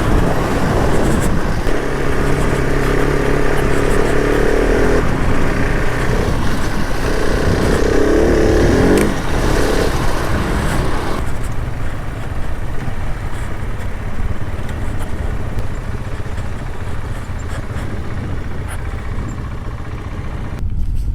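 Adventure motorcycle being ridden off-road, its engine note rising and falling with the throttle over a steady low rumble of wind and tyres. About eleven seconds in the engine eases off, leaving mostly the rumble.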